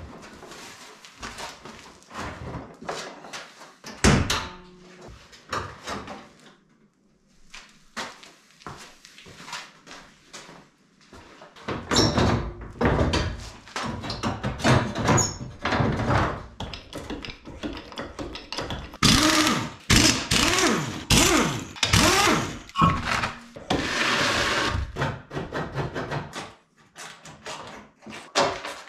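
Knocks, clunks and rattles of car body parts being pulled off a Nissan Skyline R33's front end by hand, with tools clattering. Scattered knocks at first, then a dense, loud run of them from about twelve seconds in.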